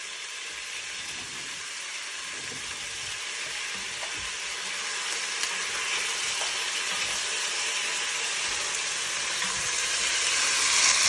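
Beef cubes sizzling as they brown in hot fat in an enamelled cast-iron Dutch oven, stirred with a wooden spoon. The sizzle is steady and grows louder toward the end.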